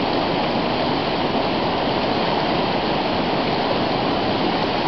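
Fast mountain river rushing in strong white-water current, a steady even rush of water.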